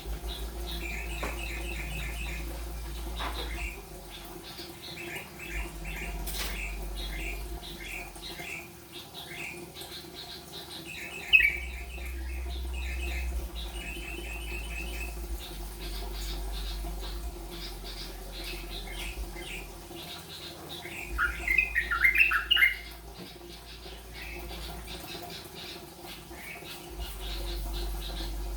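Yellow-vented bulbul (trucukan) singing in short, repeated chirping notes as it practises the rolling 'rolpen' song, with a louder run of tangled notes about three-quarters of the way through. One sharp click sounds near the middle, over a steady low hum.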